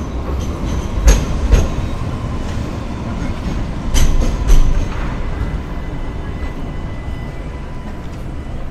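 A train or tram rolling past with a steady rumble and a faint steady whine. Its wheels knock over rail joints in pairs half a second apart, about a second in and again about four seconds in.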